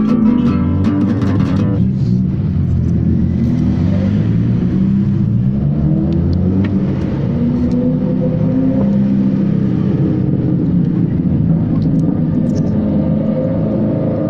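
Plucked guitar music for about the first two seconds, then a steady low rumble with slowly wavering, drawn-out tones.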